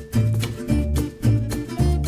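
Upbeat background music: plucked guitar over a bass note about twice a second, with a steady beat.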